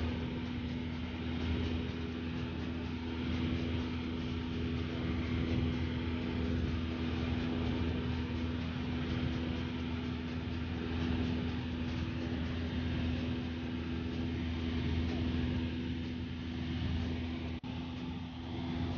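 Light propeller airplane's piston engine and propeller droning steadily, heard from inside the cabin, with a steady low hum and a held tone; the sound briefly drops out once near the end.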